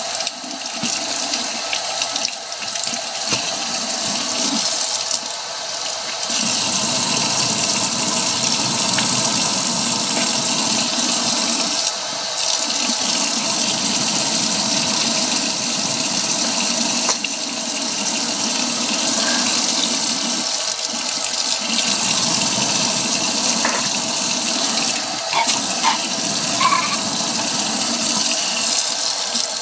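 Kitchen tap running steadily, water pouring into the sink.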